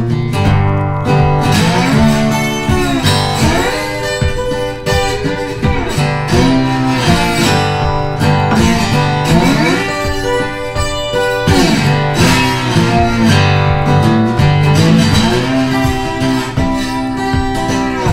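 Music with guitar playing, continuous and steady in level.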